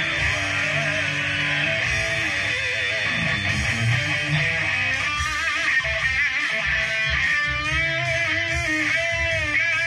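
Electric guitar from a Les Paul-style single-cut played loud through a valve amp stack. From about five seconds in it moves into held lead notes with wide vibrato and bends.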